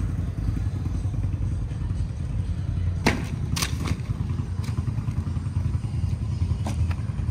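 A few sharp knocks and clatters, the loudest about three seconds in, as the wooden shipping crate's side panels are worked loose and handled, over a steady low rumble.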